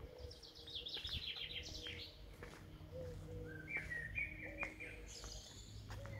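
Songbird singing outdoors: a fast run of high notes falling in pitch over the first couple of seconds, then a string of lower, shorter chirps a little past the middle, over a faint low rumble.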